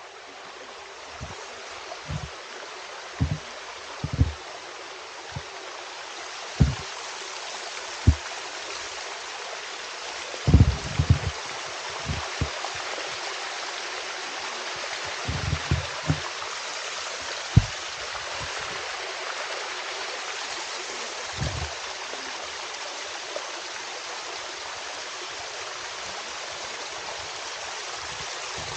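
Steady rush of running water that grows louder over the first dozen seconds, with a dozen or so irregular low thumps in the first two-thirds.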